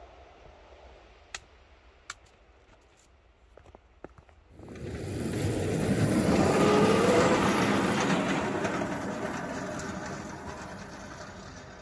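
A 7½-inch gauge snowplow train passes close by, running over the rails with snow spraying off the plow. It starts suddenly about four and a half seconds in, is loudest a couple of seconds later, then slowly fades as it moves away. A few faint clicks come before it.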